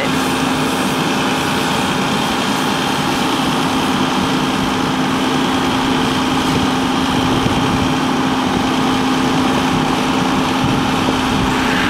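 Fire engine idling with its pump running: a steady engine hum with a constant low tone over a broad, even rushing noise.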